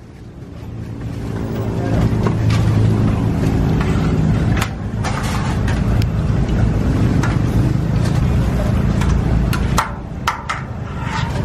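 Street-stall deep-frying: a steady low rumble under the hiss of oil frying in large steel woks, with scattered sharp clinks of wire strainers and ladles against the metal.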